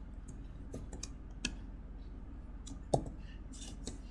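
Faint, scattered keystrokes on a computer keyboard, with two louder clicks about one and a half and three seconds in.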